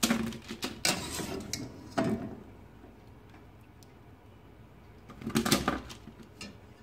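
Wire mesh skimmer scooping boiled chestnuts out of a steel pot and tipping them onto a paper-lined baking tray: short clatters of clicks and knocks at the start, about two seconds in, and a denser one about five and a half seconds in.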